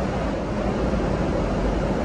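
Steady cabin noise of a Boeing 777-300ER in flight: an even rumble of engines and airflow, heaviest in the low end.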